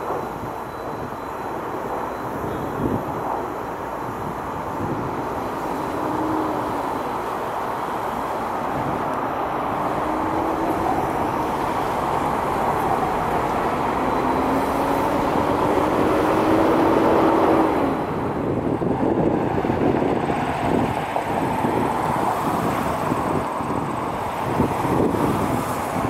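Jet airliner engines in a continuous rumble that swells gradually, with a faint rising whine. It drops suddenly about eighteen seconds in, then carries on at a slightly lower level.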